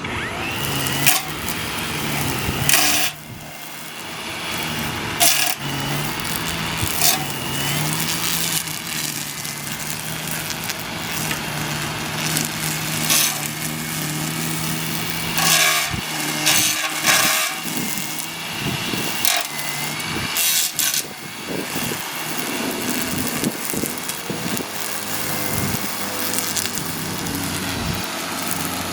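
String trimmer running steadily, with a handful of short, louder bursts spread through as it cuts.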